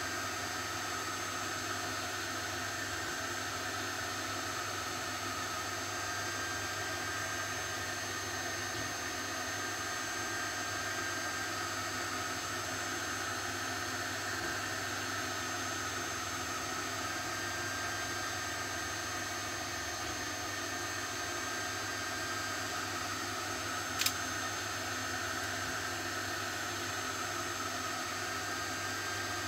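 Steady background hiss and low hum with faint steady high tones, like a fan or electrical noise, unchanging throughout; a single short sharp click about 24 seconds in.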